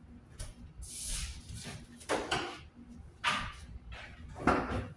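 Household handling noises: a brief hiss about a second in, then three short rustling knocks about a second apart, the last the loudest.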